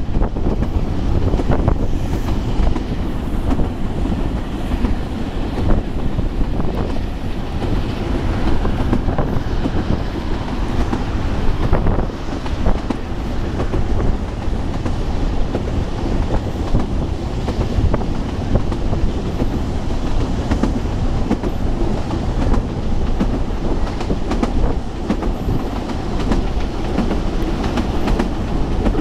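Steam-hauled narrow-gauge train running along the line, heard from an open-air carriage: a loud, steady low rumble of the carriage on the rails, with scattered irregular clicks from the wheels.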